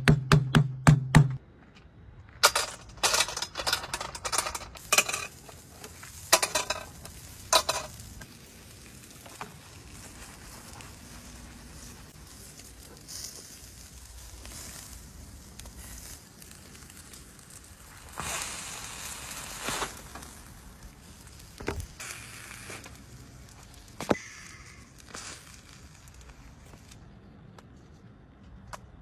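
Lamb pieces on skewers sizzling over a fire: a faint steady hiss that swells for a couple of seconds midway. At the start there is a quick run of sharp clicks, and scattered knocks and crackles come before and after the hiss.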